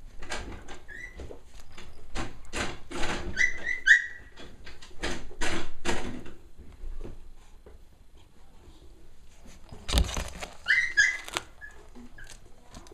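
Cavalier King Charles Spaniel puppies playing with plush toys: rustling, mouthing and scuffling noises, with a few clusters of short high squeaks and a loud knock about ten seconds in.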